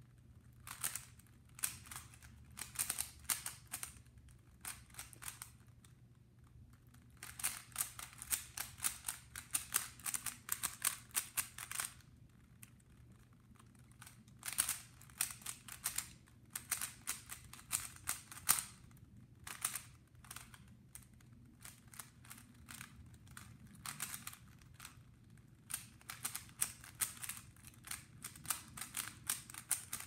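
3x3 Rubik's Cube being turned by hand, its plastic layers clicking quickly in runs of several seconds separated by short pauses.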